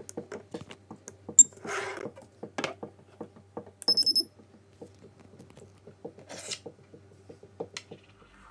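Metal-detector pinpointers handled on a wooden table: clicks, knocks and brief sliding sounds. About four seconds in, the Chinese Jeemak pinpointer gives a short high beep.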